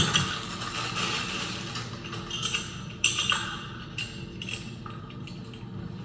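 Small metal clinks and clicks as the exterior half of a Kwikset deadbolt is handled and taken from its plastic bag, with the bag crinkling. The clicks come one by one, several of them between about two and five seconds in.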